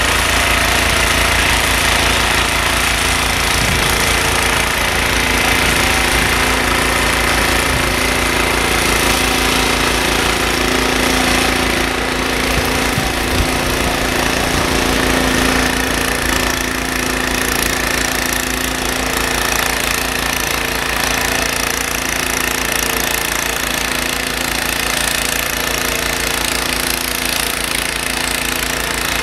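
Ariens Deluxe 30 snowblower's 306 cc single-cylinder engine running steadily while the machine clears snow.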